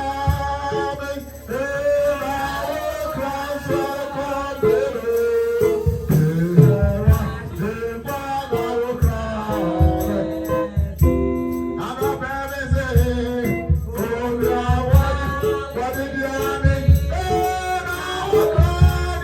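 Church worship music: singing over a band with a steady bass beat.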